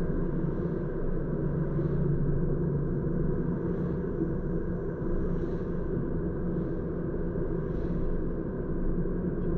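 A car driving at a steady speed, its engine and tyre noise heard as a steady low rumble inside the cabin.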